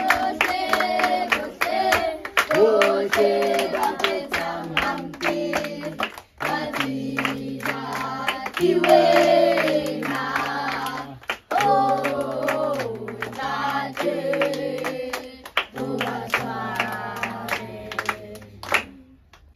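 A group of children singing a hymn together in Sesotho, clapping their hands in time, over a low stepped bass line. The singing stops just before the end.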